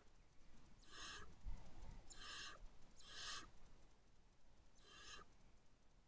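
Barn owls giving four short, raspy hissing calls, each about half a second long and spaced a second or two apart. A brief low bump comes about one and a half seconds in.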